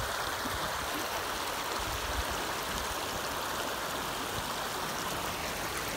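Shallow mountain stream running over rocks and stones: a steady rush of water.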